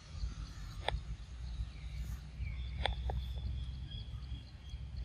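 Outdoor ambience: a steady low rumble, a few sharp clicks, and a thin high whistling call held for about two seconds in the middle.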